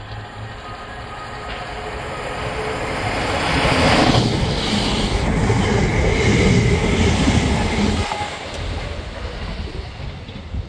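Electric passenger train passing along the platform: a rumble of wheels on rail that builds as it approaches, is loudest for about four seconds as the carriages go by, then drops off suddenly about two-thirds of the way in as the last coach passes.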